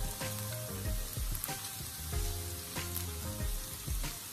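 Chopped garlic sizzling in olive oil in a frying pan, with a spatula scraping as it is stirred around. Background music with a steady beat plays underneath.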